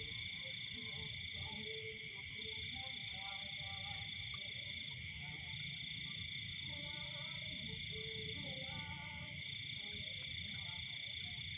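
Night insect chorus: crickets trilling steadily at several high pitches, with faint short low calls scattered through it.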